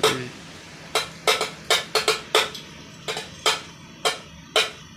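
Metal spoon beaten on a stainless steel plate, about three sharp, ringing strikes a second in an uneven rhythm, played like a drum.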